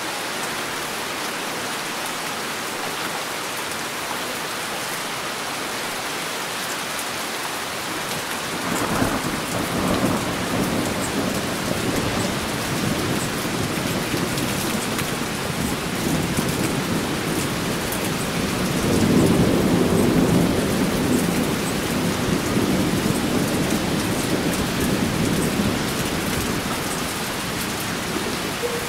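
Heavy rain falling steadily. About nine seconds in, a long roll of thunder begins, swells to its loudest about two-thirds of the way through, then fades near the end.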